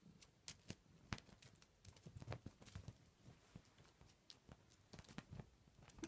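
A Cadbury Fudge wrapper crinkling in irregular sharp crackles as a cat bats, bites and pounces on it, with a few soft thuds of its paws on a duvet.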